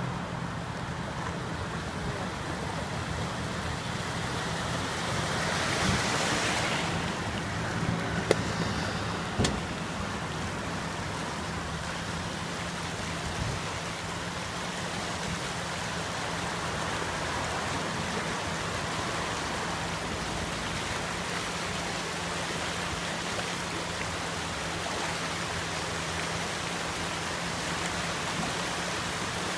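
Flash-flood torrent of muddy water and debris rushing down a concrete drainage channel: a steady rushing noise, mixed with cars passing on the road alongside. Two sharp knocks stand out about eight and nine and a half seconds in.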